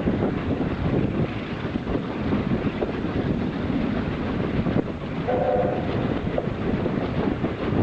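Steam-hauled train running on the line behind Peppercorn A1 Pacific 60163 Tornado: a steady rumble with the clickety-clack of wheels on the rails. A brief whistle note sounds about five seconds in.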